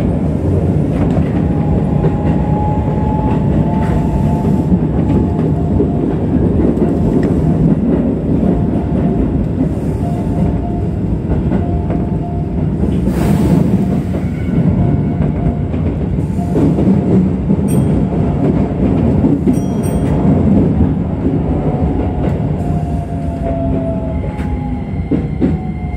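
Keisei Electric Railway commuter train running, heard from the driver's cab: a steady rumble of wheels on rail with a motor whine. A brief hiss comes a little past halfway. Near the end the whine falls in pitch as the train slows into a station.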